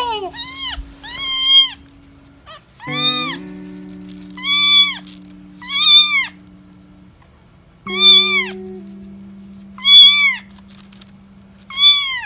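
Young kitten meowing repeatedly: about eight loud, high-pitched calls, each rising then falling in pitch, a second or two apart. Background music of long held low notes plays underneath.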